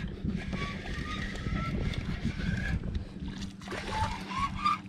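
Saltwater spinning reel being cranked against a hooked fish, giving thin rising squeaks over a steady low rumble; the reel is seizing up after being dunked in salt water. There is some water sloshing at the kayak.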